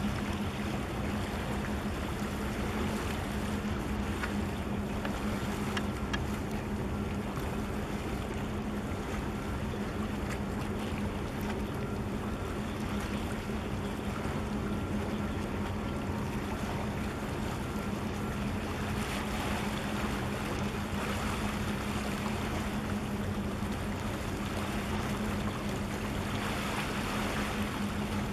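Steady low drone of ship engines in a harbour channel, over the rush of wind and water washing against the breakwater's concrete tetrapods.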